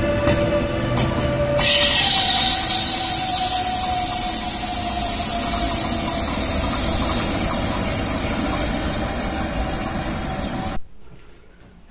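Locomotive-hauled double-deck regional train running: a loud hiss with a whine that falls slowly in pitch. The sound changes abruptly about a second and a half in and cuts off sharply near the end.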